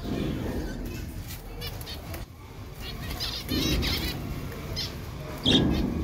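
Small cage finches (Java sparrows and zebra finches) chirping and calling, with wings fluttering. The birds give a quick run of calls about three seconds in and one loud call near the end.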